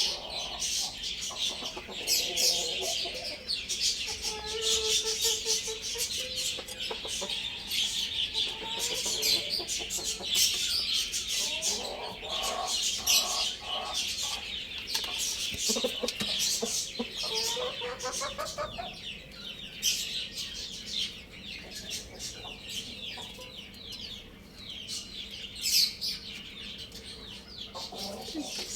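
Chickens clucking, with pitched calls coming every few seconds, over a dense, continuous chorus of high chirps.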